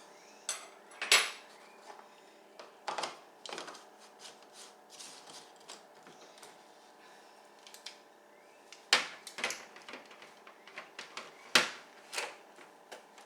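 Scattered knocks and clinks of kitchen containers and utensils being handled, a handful of sharp hits with quieter rattling between them.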